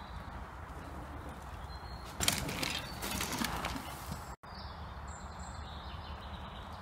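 Mountain bike knobby tyres scrub and crunch over a loose dirt trail as a rider passes close, from about two seconds in for a second and a half. Under it runs a steady low rumble, with birds singing thin, falling notes, and the sound cuts out for an instant a little after four seconds.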